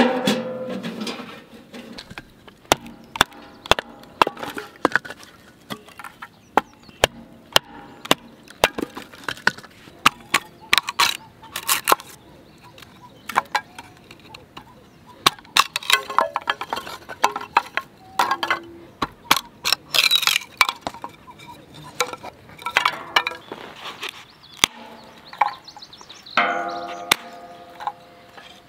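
A stainless-steel fire pit being assembled, with a ringing metal knock at the start, followed by a long run of sharp cracks and splintering as a knife splits thin dry wood into kindling, the split sticks clattering as they fall and are set down.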